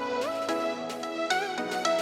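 Background music: plucked, synth-like melodic notes over sustained chords.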